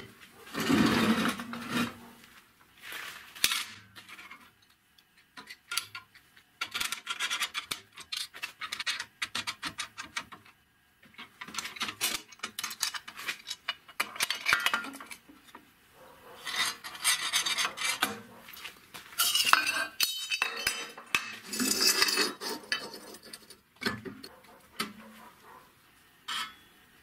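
Steel parts and sheet steel handled on a steel workbench: clinks, knocks and scraping of metal on metal, coming and going in short bursts of handling.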